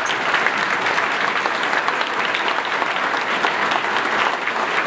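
Church congregation applauding steadily, dense clapping from many hands.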